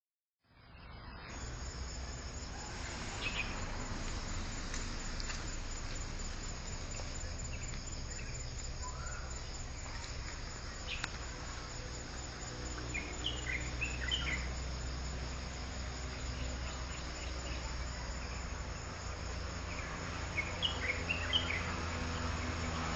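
Forest ambience: a steady, high chorus of insects, with short bursts of bird chirps about halfway through and again near the end, over a low rumble.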